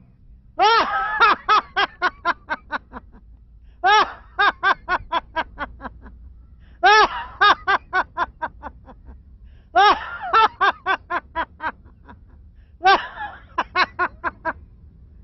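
An elderly woman laughing on purpose as a laughter-therapy exercise. There are five hearty bouts about three seconds apart, each a long opening "ha" followed by a quick run of short "ha-ha-ha"s, about five a second, that fade away.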